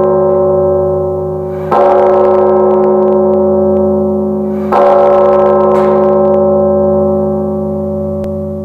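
A bell tolling: struck twice, about three seconds apart, each stroke ringing on with a deep hum beneath it. The last stroke slowly dies away.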